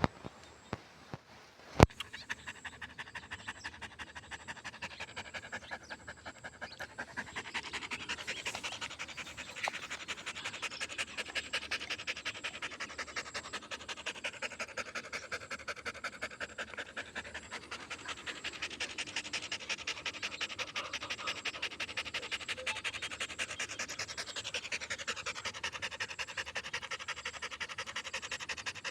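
A dog panting steadily and rapidly, about five to six breaths a second. There is one sharp click about two seconds in.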